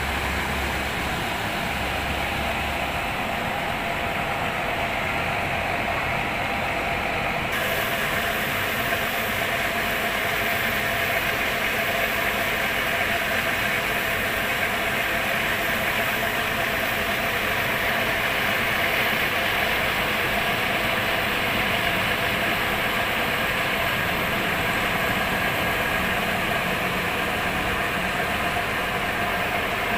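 Diesel engine of a parked coach bus idling steadily. About seven seconds in, a steady hiss comes in on top and carries on.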